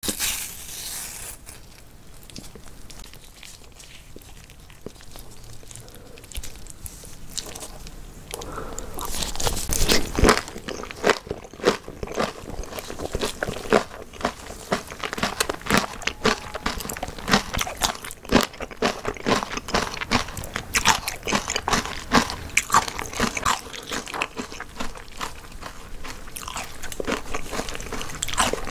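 Close-miked crunching and chewing of spicy napa cabbage kimchi, crisp and wet, in irregular dense clicks. Quieter for the first few seconds, then steadily loud crunching from about eight seconds in.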